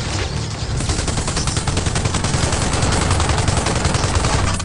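Rapid, sustained automatic gunfire: a dense, even rattle of shots at many per second that cuts off abruptly at the end, over a steady low rumble.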